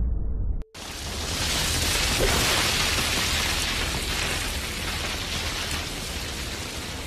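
Anime sound effects: a deep rumble from a black energy blast stops abruptly under a second in, then a steady hiss of rushing wind rises and slowly fades.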